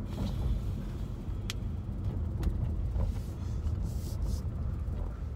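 Steady low rumble of a car's engine and road noise heard inside the cabin while driving, with a few light clicks and a brief soft hiss around the middle.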